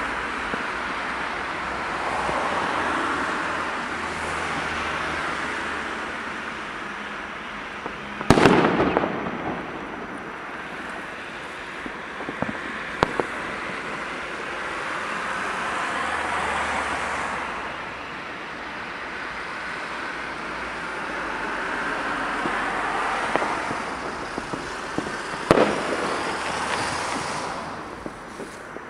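New Year's Eve fireworks: a continuous din of rockets and firecrackers going off, swelling and fading, with scattered sharp cracks. A loud bang with a rolling echo comes about eight seconds in, and another near the end.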